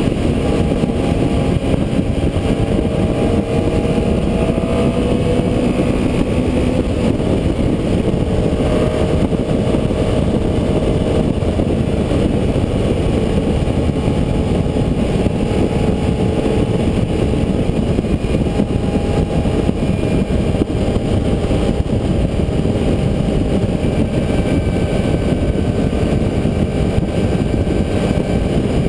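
Heavy wind rumble buffeting the helmet-cam-style GoPro on a moving Honda CBR 954RR sport bike, with the bike's inline-four engine tone running under it and drifting slightly in pitch.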